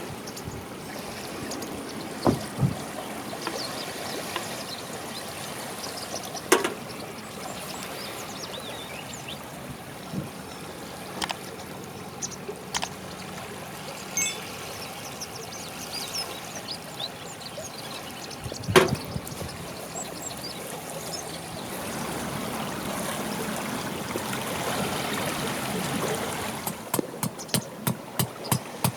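Small waves lapping steadily on a lakeshore, with a few scattered sharp knocks. Near the end comes a quick run of clicks, several a second.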